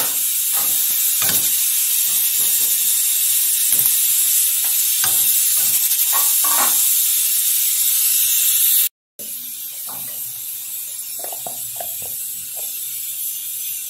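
Aluminium stovetop pressure cooker hissing steadily as steam vents from its valve, the beans inside at full pressure. Light knocks and clinks of a pot lid and utensils being handled sound over it. The hiss cuts out briefly about nine seconds in and returns quieter.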